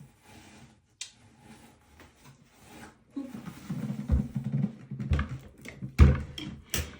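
Handling knocks and thumps as the parts of a stand mixer are moved about, several in the second half, with the loudest about six seconds in.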